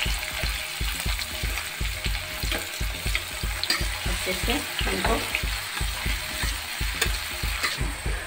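Chopped onions, green chillies and cumin seeds sizzling in hot oil in a metal pan while a metal spatula stirs them, scraping across the pan. A regular low thudding runs underneath, about three or four a second.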